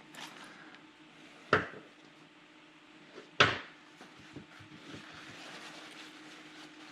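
Two sharp clacks of hard parts or tools being handled, about two seconds apart, over a faint steady hum.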